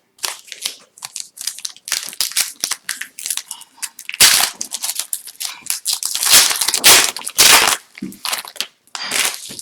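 Foil wrapper of an Upper Deck hockey card pack being torn open and crinkled by hand, an irregular crackle with louder stretches about four and six seconds in.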